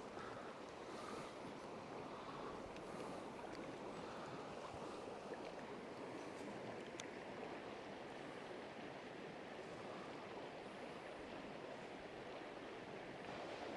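Small creek flowing over a shallow stretch, a steady rushing babble of running water.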